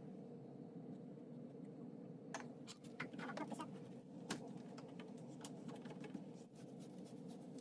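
A few light clicks and taps, clustered about two to four seconds in, over a steady low hum.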